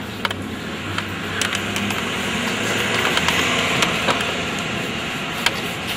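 Portable gasoline generators running steadily, a continuous engine drone with a low hum, with scattered small clicks and rattles.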